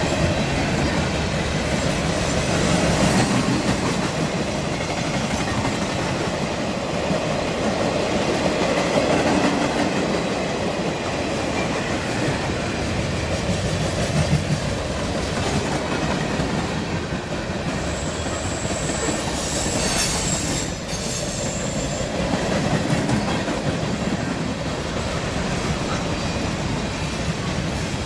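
Freight train cars rolling steadily past at trackside, with a continuous rumble and rattle of steel wheels on rail. About two-thirds of the way through, a high thin squeal of wheels rises over it for a few seconds.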